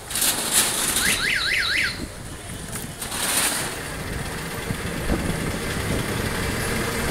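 Electronic vehicle horn sounding a quick warbling run of about four rising-and-falling chirps, about a second in, over the steady noise of busy street traffic.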